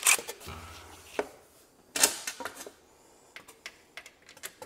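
Scattered clicks and knocks of tools and parts being handled during work on a motorcycle, the loudest knock about two seconds in, with lighter ticks near the end.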